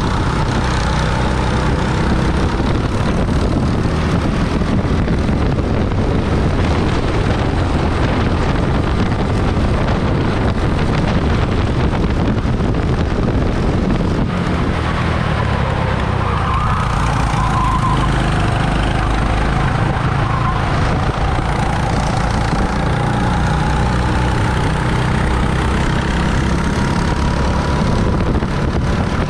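Rental race kart running continuously at racing speed, heard from the driver's seat; its motor note rises and falls with throttle through the corners.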